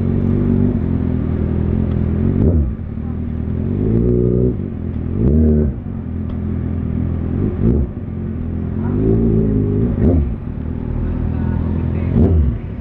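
Kawasaki ZX-6R inline-four engine running in slow traffic, heard from on the bike. The revs rise and drop sharply about six times as the throttle is opened and closed.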